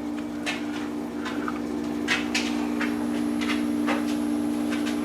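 Frigidaire side-by-side refrigerator running with a steady hum from its compressor and condenser fan, while the evaporator fan motor has failed and makes no sound, so no cold air circulates. A few light clicks and knocks sound over the hum.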